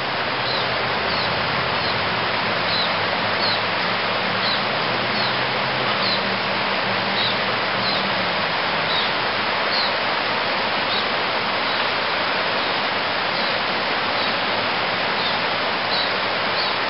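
Steady rush of a creek in flood, its swollen whitewater running fast. A bird chirps over it again and again, about every three-quarters of a second.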